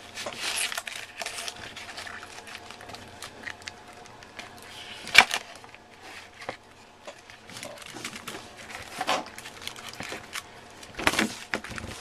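Crinkling and rustling of a vinyl-covered ribbon cable being twisted by hand, with scattered small clicks. There is one sharp click about five seconds in and a louder rustle near the end.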